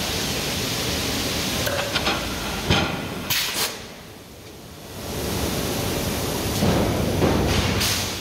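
Forge-shop machinery at a hot-die forging press: a steady hiss with a few short metallic knocks and clanks as a glowing billet is worked in the dies. The hiss drops away for about a second midway, then builds again.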